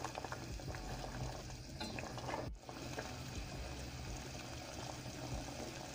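Sugar syrup with tangerine zest and peels bubbling at a low boil in a saucepan, a steady sizzling bubble, with a wire whisk stirring through it and clicking lightly now and then.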